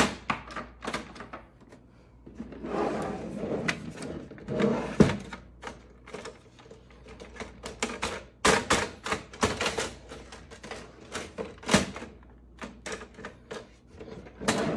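Hard plastic clicks, knocks and clatter from a laser printer's paper tray being pushed and jiggled while it refuses to close all the way, and from the printer being shifted and tilted on the table. The knocks come irregularly, some in quick runs.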